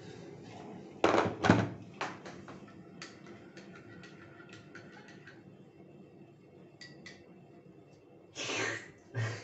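Hot water poured from an electric kettle into a mug, then the kettle set down with two heavy thunks, followed by a spoon ticking lightly against the mug as the coffee is stirred. A short noisy burst comes near the end.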